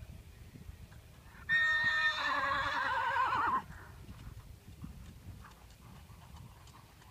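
A horse whinnies once, a quavering call of about two seconds that starts about a second and a half in. Faint hoofbeats on arena sand sound around it.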